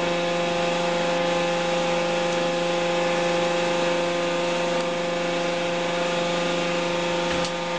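Hydraulic power unit of a mobile car-body baling press running steadily: a constant hum with a higher whine over it while the hydraulics move the operator cab. Near the end there is a click, and the level drops slightly.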